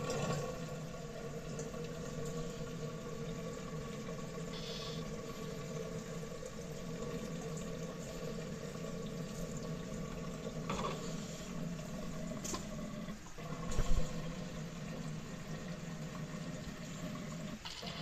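Water draining out of a frog cage's pumice layer and running steadily through the vinyl drain tubing, like a toilet flushing. There is one short knock about 14 seconds in.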